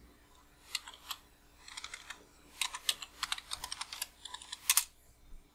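Typing on a computer keyboard: an irregular run of keystrokes as a password is entered at a git push prompt, ending with a louder key press near the end.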